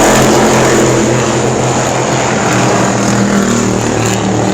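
Stock car race engines running at speed on track, several cars together making a loud, steady drone that shifts a little in pitch as they go around.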